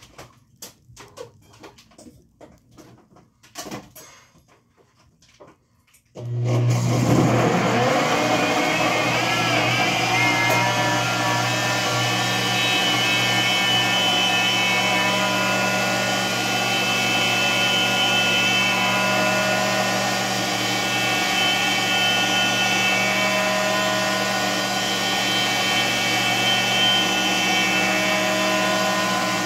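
A countertop blender switches on about six seconds in and runs steadily at an even pitch, blending papaya and pineapple with water for agua fresca. Before it starts there are a few faint clicks and knocks.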